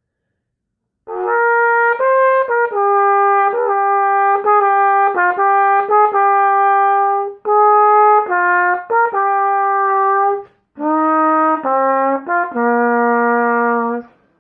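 Trumpet played through a 3D-printed ABS copy of a Bach 1-1/2C mouthpiece. It plays three short phrases of separate tongued notes, the last ending on a held lower note.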